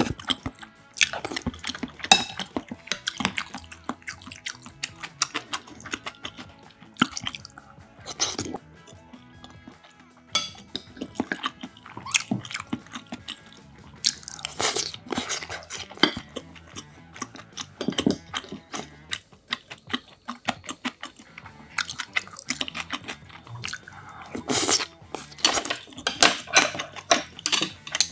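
Close-miked eating sounds: wet chewing, slurping of hot soup from a spoon, and small clicks of spoon and chopsticks, coming in irregular bursts.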